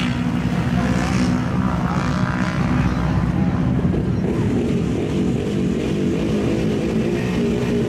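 Super Modified mud-racing machine's engine running hard as it charges through a water-filled mud pit, with the hiss of spraying water in about the first second. Its pitch wavers up and down in the second half as it drives on across the dirt.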